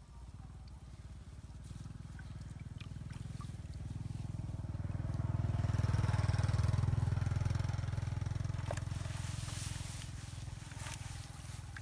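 A motor vehicle engine passing by: a low, steady engine hum that grows louder, is loudest about six seconds in, then fades.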